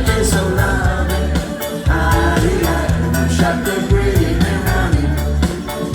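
Live band music: a steady drum beat and heavy bass line with voices singing over the band.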